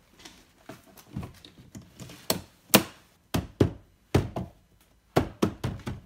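Tesla Model S interior door trim panel being pressed and knocked into place by hand, its plastic trim clips snapping into the door: a series of sharp knocks and snaps, most of them in the second half.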